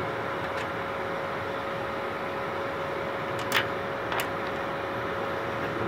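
MultiPro MIG-MMA/TIG 160 A-SC inverter welder switched on and idling, its cooling fan giving a steady whir with a faint hum. Two sharp clicks a little past halfway, less than a second apart, as the cable plugs are changed over in its front sockets.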